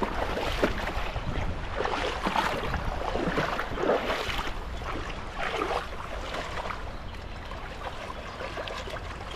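Shallow river water splashing and sloshing irregularly as a cast net is hauled in through it, over the steady rush of the stream and a low rumble. The splashing is busiest in the first half and eases off toward the end.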